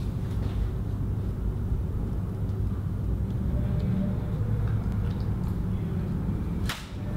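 Steady low rumble, with a brief dip near the end.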